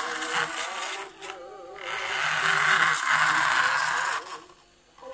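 Plastic toy truck rolling and scraping across a hard floor, loudest from about two to four seconds in, over a song playing from a cassette radio.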